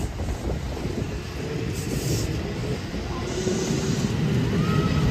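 Kintetsu 2444-series electric train running past the platform: a steady low rumble of wheels on rail, with a thin steady whine from about a second and a half in. A short wheel squeal comes near the end.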